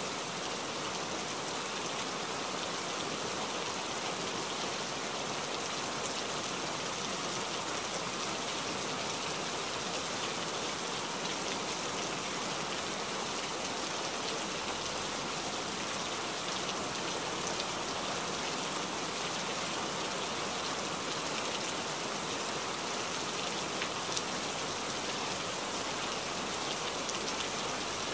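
Steady rain: an even, unbroken hiss of many drops, with no thunder or music.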